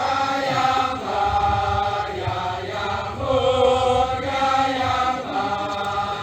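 A chorus of voices chanting in long held notes, moving to a new pitch every second or so.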